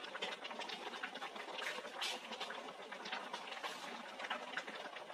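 Pot of mung bean stew bubbling at the boil, with irregular small pops and crackles over a steady simmering hiss. A ladle stirs fresh leaves into it near the end.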